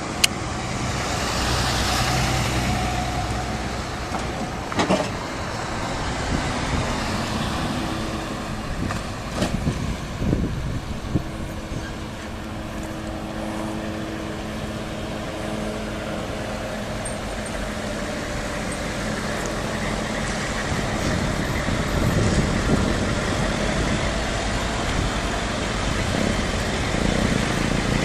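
Motor vehicle and traffic noise: engines running and tyres on the road, with a few sharp knocks.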